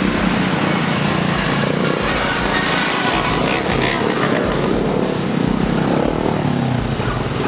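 Several motorcycle engines running together as a group ride moves along, a steady drone.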